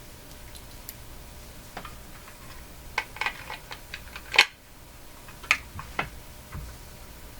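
Irregular clicks and taps of small hardware being handled on a workbench, a scatter of light clicks with a few sharper ones, the sharpest about four and a half seconds in.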